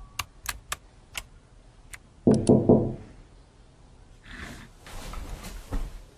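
A handful of sharp clicks from a computer keyboard and mouse, then a louder knocking thump a little over two seconds in. This is followed by softer scuffing and a thud as a person gets up from the desk chair.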